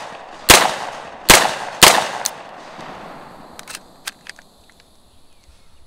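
Three shots from a semi-automatic HK SP5K 9mm pistol, the first two about a second apart and the third half a second later, each trailing off in echo. A few faint clicks follow.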